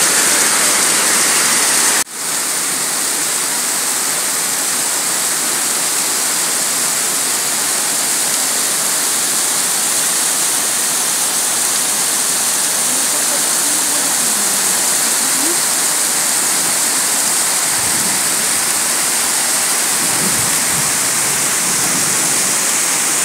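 Torrential rain mixed with hail falling hard, a loud, steady, dense hiss. It cuts out for an instant about two seconds in, then carries on unchanged.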